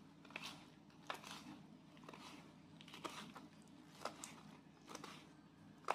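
Kitchen knife chopping soaked wood ear mushrooms on a wooden cutting board: faint, crisp chops about once a second.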